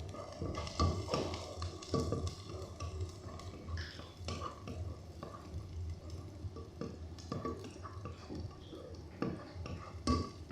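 Kitchen work sounds: utensils and cookware clinking and knocking at irregular moments, over a steady low hum.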